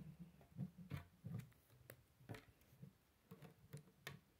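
Faint, irregular clicks and taps of plastic K'nex rods and connectors being handled and pushed together.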